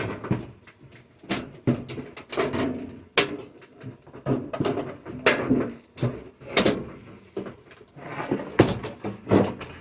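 Irregular knocks, clatters and scraping of a microwave oven's steel casing being handled and worked loose during teardown.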